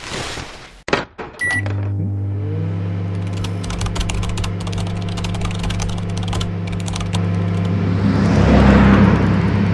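Cartoon sound effects at a shop register: a short electronic beep, then a steady low electrical hum, with quick computer-keyboard typing clicks over it for a few seconds. A rushing swell rises near the end.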